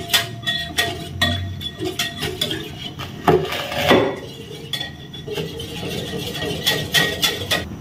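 Wire whisk beating a runny flour batter in a glass bowl, its wires clinking and tapping against the glass in an irregular run of clicks. A couple of louder knocks come about three and four seconds in.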